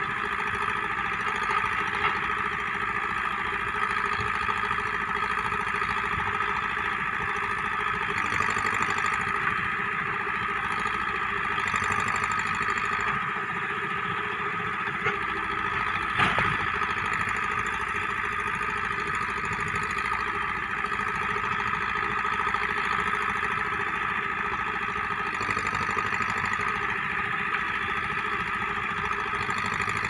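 Terex backhoe loader's diesel engine running steadily while it digs, heard from a distance, with a single sharp knock about halfway through.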